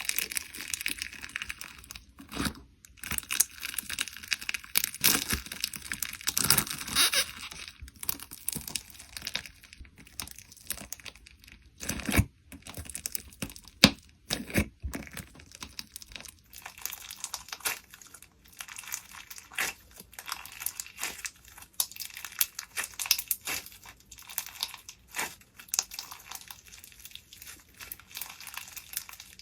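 Slime being squeezed and stretched by hand, giving a dense, irregular run of crinkly crackles and small pops, with a few sharper snaps around the middle.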